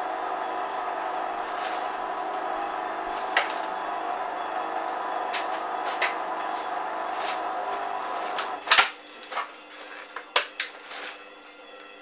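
Hoover Dynamic front-loading washing machine on a spin, its motor and drum running with a steady whine and scattered clicks. About two-thirds of the way through comes a loud click, the motor cuts out and the drum coasts down with irregular clicks and knocks.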